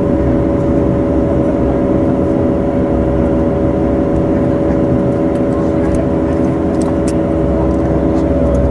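Bombardier Dash 8 Q400's Pratt & Whitney Canada PW150A turboprop running at taxi power, heard from inside the cabin, with the aircraft taxiing on a single engine. A steady drone with several steady humming tones over a low rumble.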